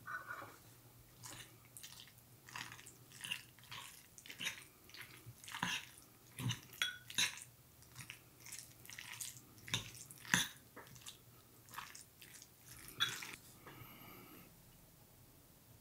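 A metal utensil scraping and clinking against a ceramic bowl, mixed with close chewing: a string of faint, short, irregular clicks and scrapes.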